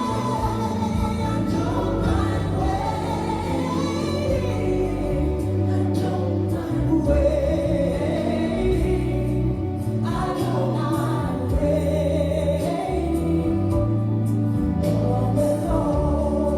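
Gospel worship song: voices singing over keyboard and bass accompaniment.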